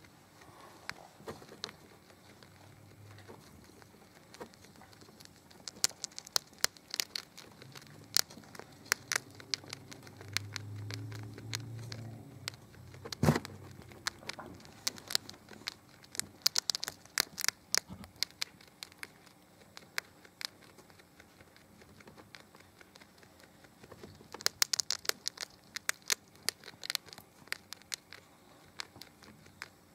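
Pet rat gnawing and crunching a hard baked crescent-roll treat held in its paws: sharp crackly crunches come in three spells with quieter nibbling between, and one louder crack near the middle.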